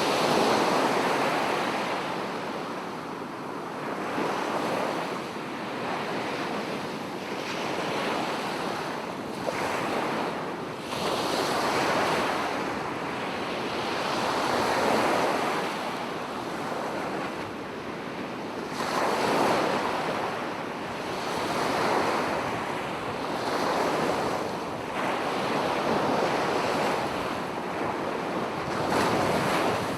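Small waves lapping on a shore, a wash of water that swells and fades every two to three seconds, with a light wind in the background.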